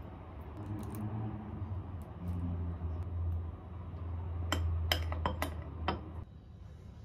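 A metal spoon clinking against a ceramic bowl while strawberries in milk are stirred, about six sharp clinks in the second half, over a low steady hum that stops near the end.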